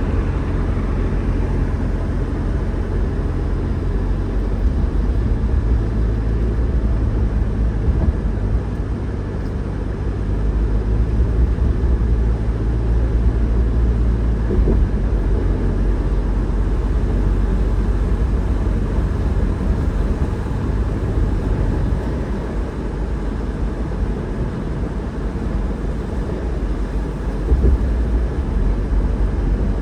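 A car driving: a steady, low rumble of engine and tyre noise on the road, with a low hum that shifts a little as the speed changes.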